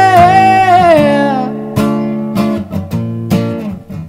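A man's voice holds a long sung note over acoustic guitar; the note falls away about a second and a half in, and the guitar carries on alone with a few strums.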